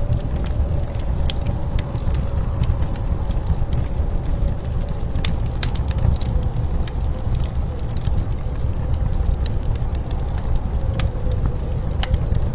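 Wood fire crackling with scattered sharp pops, over a steady low rumble of blizzard wind and a faint wavering whistle.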